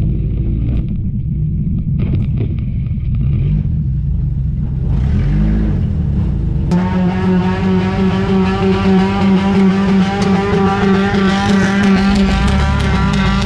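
Enduro race car engine running on track with a low, uneven rumble. About seven seconds in the sound changes abruptly to a steadier, higher-pitched drone.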